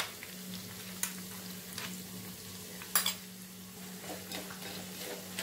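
Ground spice-and-coconut paste sizzling in hot oil in a small pan as it is stirred with a spoon, just added to a tempering of peanuts, chana dal and curry leaves. The spoon clicks against the pan a few times, sharply about a second in and about three seconds in.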